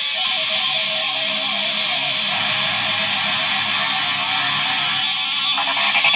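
Electric guitar played through effects pedals in a dense, sustained space-rock wash. Near the end, as a knob on the blue compact pedal is turned, a fast, even pulsing sets in and grows louder.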